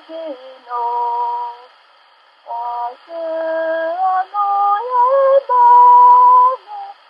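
A woman singing a slow melody in long held notes that step and slide between pitches, with a short pause about two seconds in and a loud sustained note near the end.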